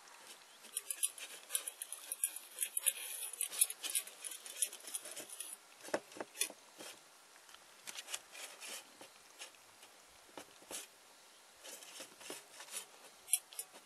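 A small long-haired dog eating wet dog food from a stainless steel bowl: quick wet licking and chewing clicks, busiest in the first five seconds and sparser after.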